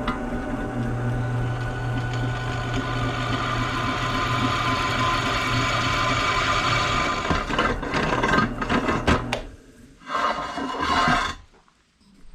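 Electric drill boring a hole through steel plate, running steadily at one pitch for about seven seconds, then in a few short bursts before it stops shortly before the end.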